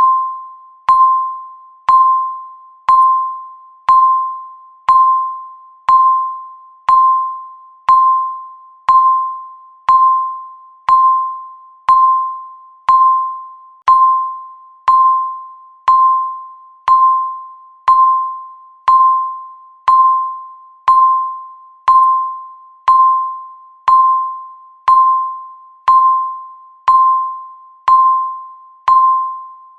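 Countdown timer beeping once a second: a single clear tone that starts sharply and fades away before the next beep.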